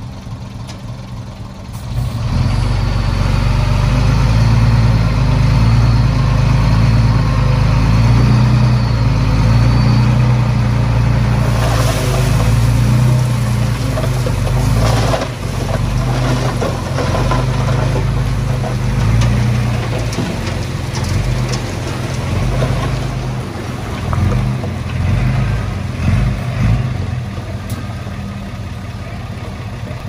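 Heavy-equipment diesel engine running, getting much louder about two seconds in and easing back to a lower, steadier run near the end, with some clattering in the middle.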